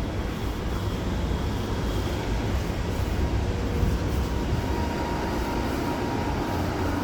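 A train rumbling low and steady in an underground station, with a faint high whine that grows a little stronger near the end.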